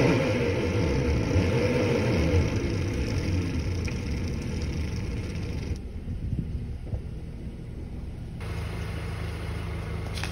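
2009 Mazda5's four-cylinder engine revving under load while the front drive wheel spins in place on ice, with a hiss of the slipping tyre over the engine. About six seconds in the hiss stops and only a lower engine rumble is left.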